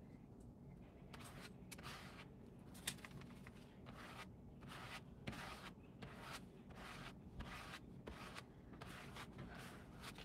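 Plastic Bondo spreader scraped across paper, spreading wet acrylic paint: a run of soft, short scraping strokes, about two a second.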